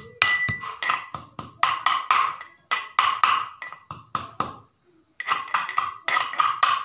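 Steel pestle pounding garlic cloves and green chillies in a small steel mortar: rapid ringing metallic strikes, about three a second, with a short break about two-thirds through before the pounding resumes.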